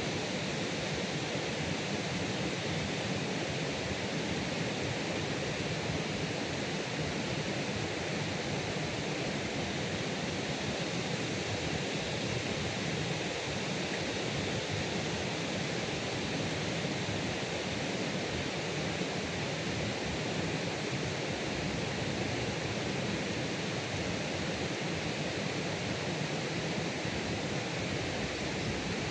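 Steady, even rushing noise of water, unchanging throughout, with no distinct splashes or knocks.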